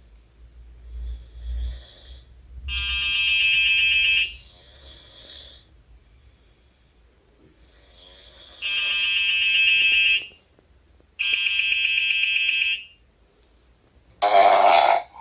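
Snoring: a series of loud snores, each about a second and a half long, with fainter ones between them. This is the sound the snore-detection prototype is being tested on.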